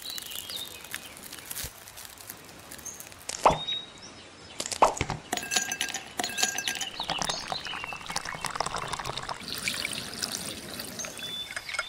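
Drink-making sounds: two sharp glass clinks a few seconds in, like ice dropping into a tall glass, then a milky drink poured from a small bottle over the ice, splashing and trickling.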